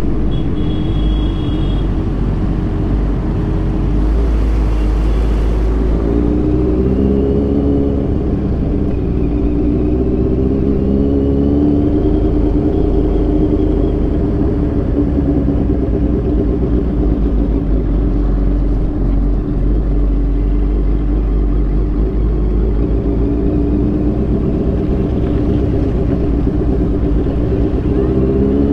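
Motorcycle engine running steadily while riding, its note wavering and drifting gently up and down, over a heavy low rumble.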